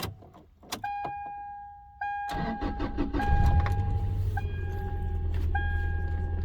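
Toyota Tacoma 2.7 L four-cylinder engine cranked and started about two seconds in, then idling rough and shaking with a cylinder 4 misfire (code P0304). A steady electronic dashboard warning chime sounds from about a second in and keeps sounding on and off over the engine.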